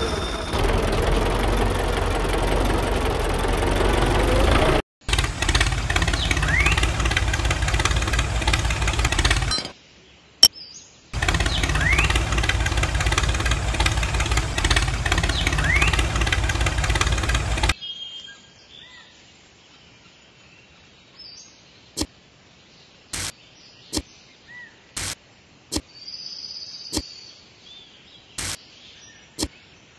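A miniature DIY tractor's small motor running loudly in three stretches, with two short breaks, then stopping about eighteen seconds in. After that birds chirp faintly and there are several sharp, separate clicks.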